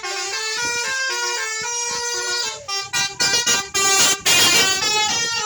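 Bus's multi-tone basuri telolet air horn playing a melody, stepping from note to note, with a brief loud rush of noise about four seconds in.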